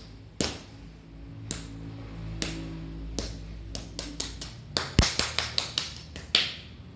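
Sharp slaps and finger strikes on a patient's skin during a hand-healing treatment: four spaced strikes, then a quick run of about four a second, one of them much louder, over a steady low hum.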